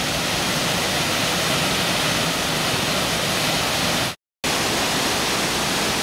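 Waterfall rushing, a steady roar of water plunging into its pool, cutting out completely for a moment about four seconds in.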